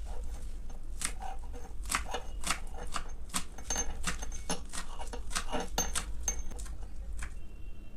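Kitchen utensils and dishes being handled: an irregular run of sharp clicks and knocks, about two or three a second.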